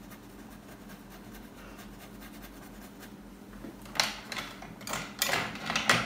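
Faint steady room hum, then from about four seconds in several short scratching, rubbing strokes of a paintbrush being worked.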